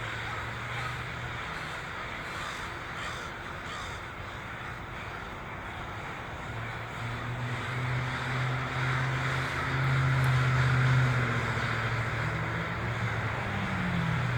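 A huge flock of crows cawing all at once, countless overlapping caws merging into a continuous din. A low engine drone underneath grows louder in the second half, peaking about ten seconds in.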